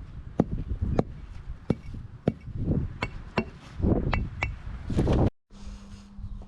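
Hard, sharp knocks and clinks, about two a second and irregular, as concrete pavers are tapped and set into a sand bed. The knocks stop abruptly a little past five seconds and a steady low hum follows.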